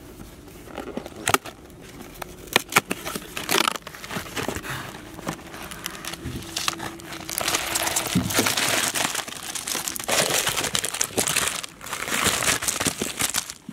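Cadbury Dairy Milk chocolate bar wrappers crinkling and rustling as a pile of bars is handled, with many sharp crackles. The crinkling grows denser in the second half.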